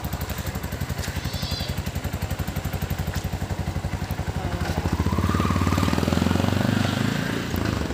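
An engine running with a steady low pulsing beat, which grows louder and fuller about five seconds in.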